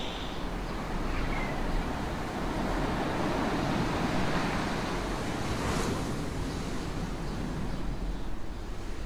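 Sea surf washing in, with wind, swelling in the middle and easing off toward the end.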